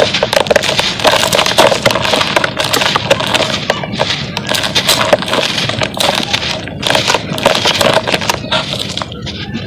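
A dry cement clump crushed and crumbled by hand, crackling and crunching, with dry powder and grit pouring into a plastic basin. Dense, continuous crackle full of sharp little snaps, easing off briefly a few times.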